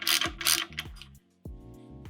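Ratchet wrench clicking in quick back-and-forth strokes, undoing the fork's top cap, that stops about half a second in. Background music with a steady beat plays throughout.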